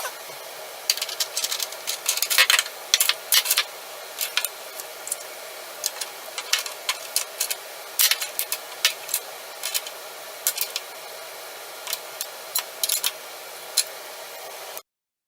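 Irregular sharp clicks and light rattles of small hard objects being handled, over a steady hiss; the sound cuts off suddenly near the end.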